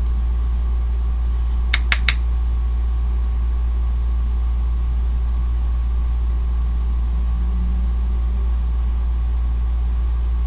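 A steady low hum, with three quick clicks close together about two seconds in.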